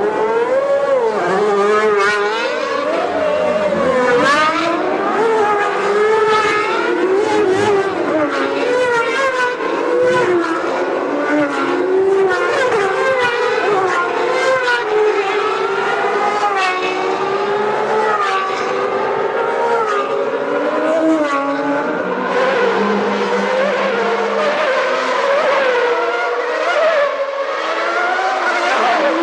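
Several 1991 Formula One cars with 3.5-litre naturally aspirated engines running at high revs together. Their overlapping pitches keep climbing and dropping as the engines rev up and change gear.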